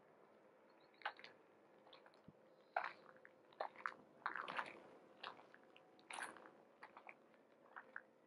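Faint crunching footsteps, unevenly spaced.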